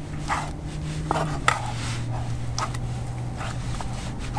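Spatula scraping and knocking against a camping cook pot as burger meat fries in it, in a series of short irregular strokes. A steady low hum runs underneath and drops in pitch about a second and a half in.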